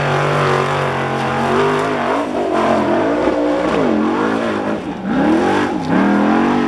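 Formula Offroad buggy's engine run hard on a steep sand climb, held at steady high revs, then surging up and down over and over about two seconds in as the buggy loses grip and slides back down the slope.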